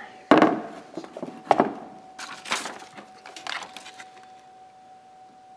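Four sharp clicks and taps of hard plastic, about a second apart and the first the loudest, as a test light is handled and its probe is put to the fuses of a car's underhood fuse box.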